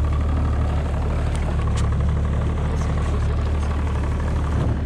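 A boat's engine running steadily, a constant low hum under the rush of wind and water.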